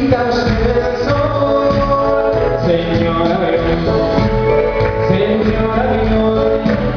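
Live band music: a song played loud and steady, with a singer's voice in places.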